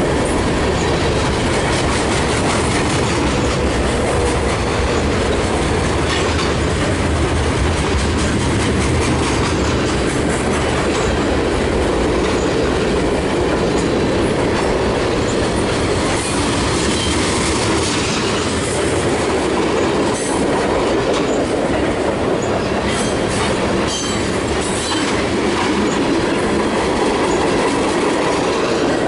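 Freight train of covered hoppers and tank cars rolling steadily past close by, a loud, even rumble of steel wheels on rail with clicking as the wheels cross the rail joints.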